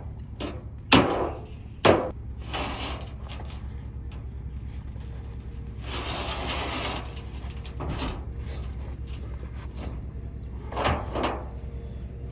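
Steady low drone of an engine-driven welder running, with several sharp, loud metal impacts, two near the start and a pair near the end, typical of beating down steel on a silage wagon frame. About halfway through there is a second-long burst of hissing noise.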